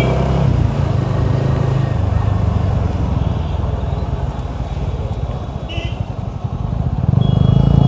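Motorcycle engine running under the rider at low town speed, with wind and road noise. It drops in the middle as the bike slows to cross a railway level crossing, then picks up again near the end as it accelerates. A few brief high-pitched beeps sound over it.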